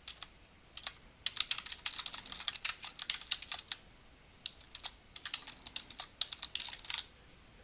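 Typing on a computer keyboard: a run of quick key clicks, with a brief pause about halfway through, as a short text note is typed in.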